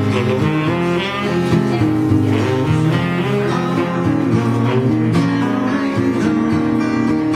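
An instrumental passage played live: acoustic guitar strumming chords, with a saxophone playing melody lines over it.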